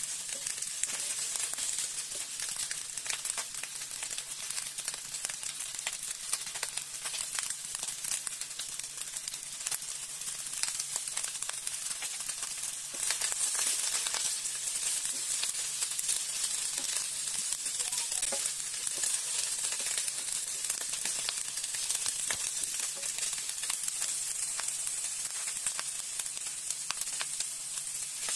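Chicken feet frying in hot oil in a wok, sizzling and crackling steadily as they are stirred with a spatula; the sizzle gets louder about halfway through.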